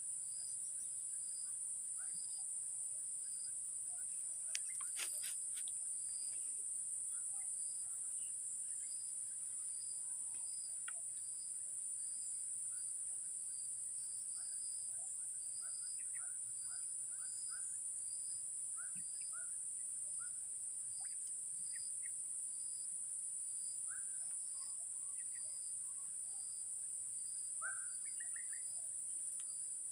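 Steady, high-pitched drone of an insect chorus, with another insect pulsing about once a second beneath it. Scattered short bird chirps and a few faint clicks come through now and then.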